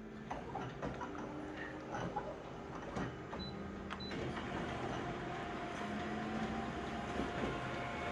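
Scanner or printer mechanism running through a scan: its motor whirs in steady tones that shift in pitch partway through, with a few clicks early in the pass.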